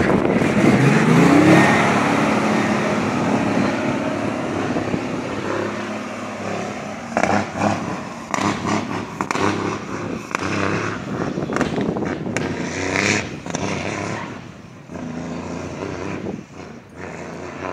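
International truck's engine heard from inside the cab as the truck drives off. Its pitch rises as it accelerates over the first two seconds, then it runs steadily and eases off, with road noise and scattered knocks and rattles in the second half.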